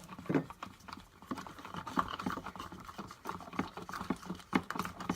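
Quick, irregular sticky clicks and taps of homemade slime being stirred and worked in a container, with one louder knock about half a second in.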